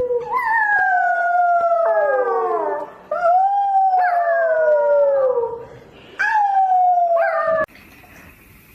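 A dog howling: three long howls, each sliding down in pitch, the last cutting off sharply near the end.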